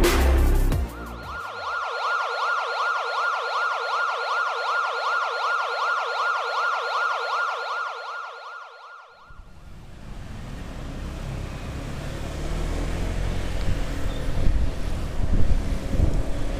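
Electronic siren in a rapid yelp, its pitch sweeping up and down many times a second for about eight seconds before cutting off. It gives way to the rushing wind and road noise of a motorcycle riding in traffic, growing louder toward the end.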